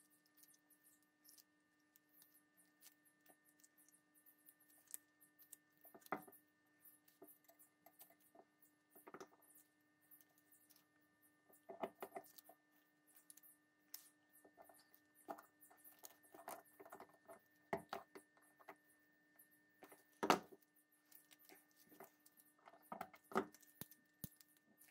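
Faint scattered clicks, taps and rustles as the small metal parts of a pepperbox pistol are handled on a paper towel during disassembly, the sharpest tap about twenty seconds in. A steady faint hum runs underneath.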